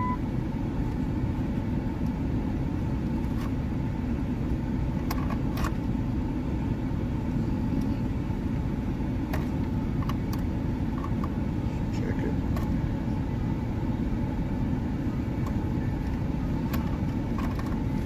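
Pickup truck engine idling, heard as a steady low rumble inside the cab, with a few faint scattered clicks as a charger plug is worked in the dash power outlet.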